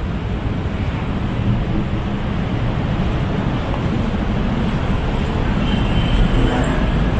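Steady low rumble of city road traffic, with no single event standing out.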